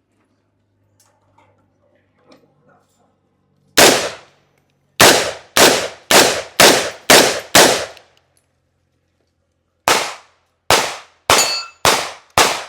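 Gunshots fired in quick succession: a single shot about four seconds in, then six shots about half a second apart, a short pause, and another run of five shots near the end.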